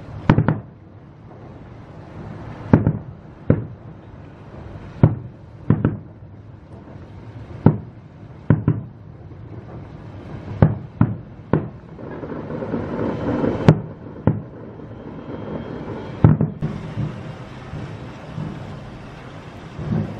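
Fireworks display: about a dozen separate shell bursts, roughly one bang a second. Past the middle there is a rumbling stretch, and near the end a steadier rushing noise.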